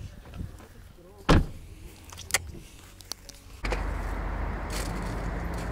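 A few sharp clicks in a quiet spot. Then, starting abruptly about three and a half seconds in, the steady low hum of a car running.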